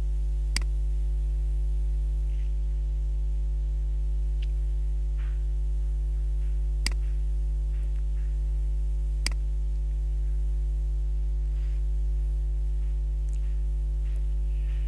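Steady low electrical mains hum with a stack of overtones. It is broken by three sharp mouse clicks: about half a second in, about seven seconds in and about nine seconds in.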